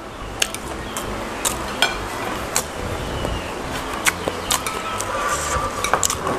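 Chopsticks clicking against a ceramic plate as instant fried noodles are picked up and eaten, a dozen or so short sharp clicks at irregular intervals.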